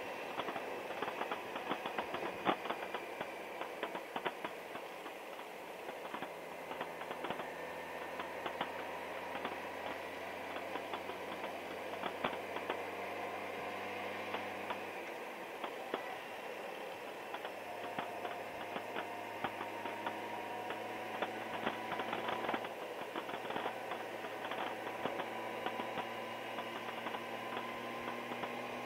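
Honda Gold Wing GL1800 motorcycle engine running at road speed with wind noise, heard from the rider's seat; its pitch shifts about halfway through as the speed changes. A scatter of small clicks runs through it.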